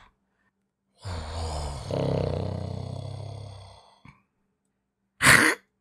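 A man's voice doing a cat-monster creature vocal: one long, low growling roar of about three seconds that fades out, then a short, sharp breathy burst near the end.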